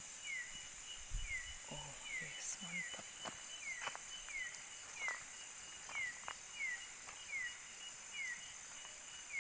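Nighttime tropical forest insect chorus: a steady high-pitched drone, with a short falling chirp repeating about every 0.7 seconds and a few sharp clicks.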